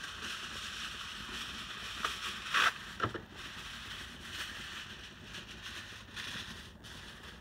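Steady hiss from a lit gas grill cooking foil-wrapped catfish, with a couple of short knocks about two and a half to three seconds in.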